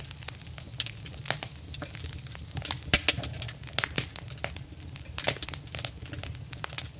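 Intensely burning fire: a steady low roar under dense, irregular crackling and popping, with one sharper, louder pop about three seconds in.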